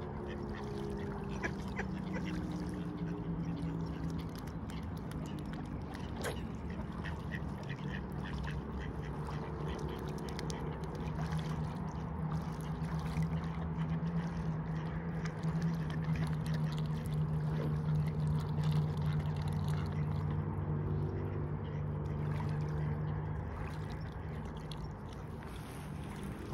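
Mute swans and Canada geese feeding in shallow water, with sharp clicks and dabbling from their bills and a few short falling calls. A steady low hum lies under it.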